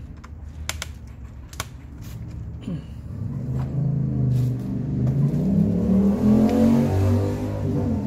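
A few small sharp clicks in the first two seconds, then a motor drone that grows louder and rises in pitch from about three seconds in, peaking near the end.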